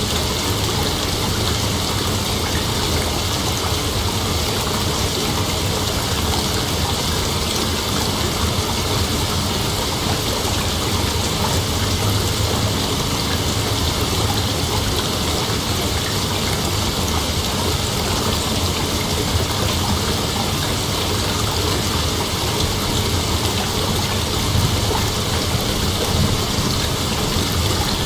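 Dense chorus of night insects, a steady unbroken hiss strongest in the high range, over a low rumble.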